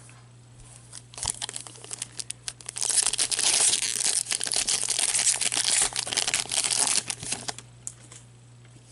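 Hockey card pack wrapper handled with a few light crackles, then crinkled and torn open in a dense crackling run of about four seconds that stops abruptly.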